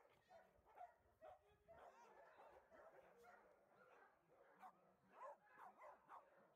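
Small dogs yipping and barking faintly in short, quick calls, several overlapping, with a run of louder yips in the second half.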